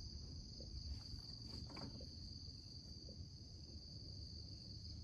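Faint, steady high-pitched chorus of insects such as crickets, over a low background rumble.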